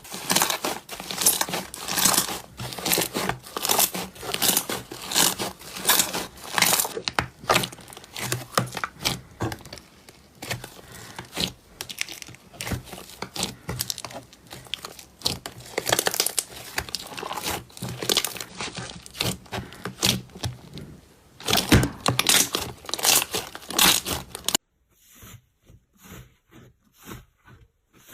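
Slime being squeezed and worked by hand, giving dense, irregular crackling and popping. It stops abruptly near the end and gives way to fainter, sparser clicks.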